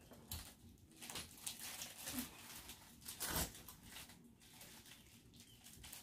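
Clothes rustling as they are handled, with a few light knocks and one louder rustle a little over three seconds in.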